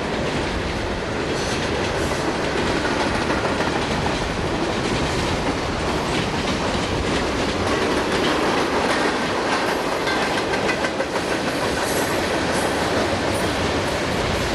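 Freight cars of a passing CSX freight train rolling by: a steady noise of steel wheels on the rails, with many short clicks throughout.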